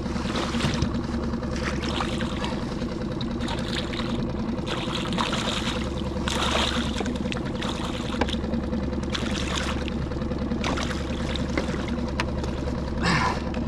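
Water lapping and splashing against a small skiff's hull in irregular surges, every second or two, over a steady low hum.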